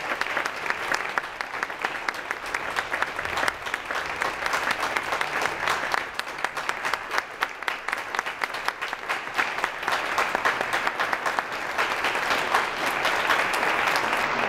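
Concert hall audience applauding, a dense steady clapping that grows a little louder in the last few seconds.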